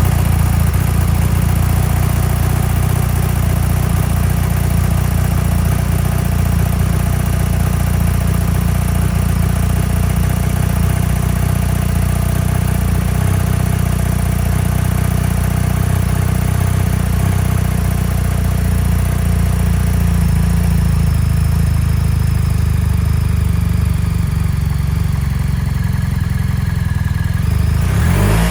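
BMW R1300 GS's boxer-twin engine idling steadily through an Akrapovic double-barrel exhaust with the dB killer removed.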